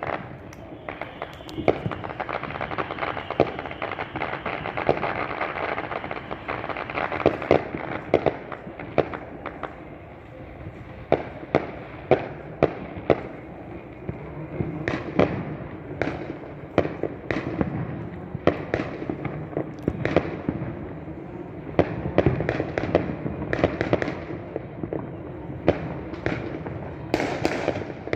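Fireworks show going off in a dense barrage: a continuous crackle with frequent sharp bangs throughout.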